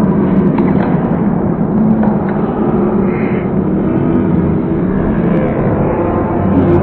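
Arena crowd noise: a steady din of many voices shouting and talking at once.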